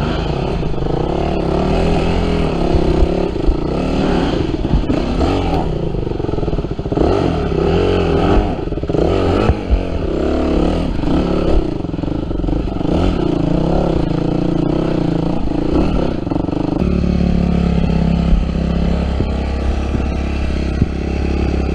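Yamaha WR250F dirt bike's single-cylinder four-stroke engine revving up and down as it is ridden, the pitch rising and falling with the throttle; about 17 seconds in it settles to a steady, lower note.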